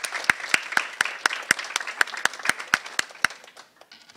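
Audience applauding, with one person's claps standing out at a steady pace of about four a second; the applause dies away near the end.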